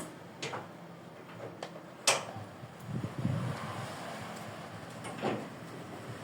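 Sharp knocks and clatter of things being handled during unboxing: several separate knocks, the loudest about two seconds in, with a low rumbling scrape about three seconds in.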